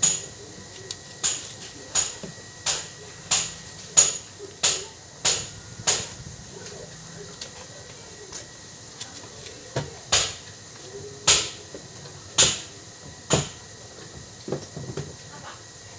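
Hammer blows on metal with a bright ring, in a steady run of about nine strikes, then a pause and four slower strikes, as parts of a washing machine gearbox are driven into place.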